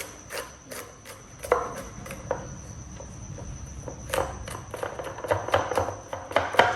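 Garlic being peeled by hand: irregular sharp clicks, taps and crackles, busiest about one and a half seconds in and again over the last few seconds, over a faint steady high-pitched tone.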